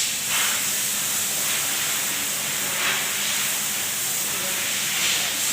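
Compressed air hissing steadily as a tubeless tyre is inflated, before the bead has popped onto the rim.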